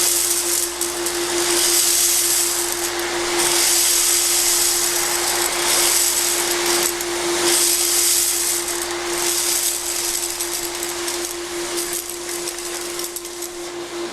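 Ruwac WS2320 industrial vacuum running with a steady motor whine, with a hissing rush that swells and fades every couple of seconds as sand, metal washers and plastic grindings are sucked up through the 32-inch floor sweep.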